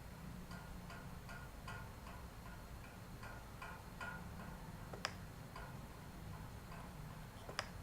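Faint, evenly repeating clock ticking over a low steady hum, with two sharper clicks, one about five seconds in and one near the end.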